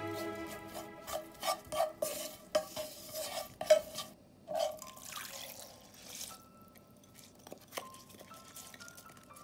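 A wooden spoon stirring and scraping mushrooms and cherry tomatoes around a frying pan, with irregular clicks and a few sharp knocks. About four and a half seconds in, liquid is poured into the pan with a brief rush, and the spoon sounds grow fainter after it.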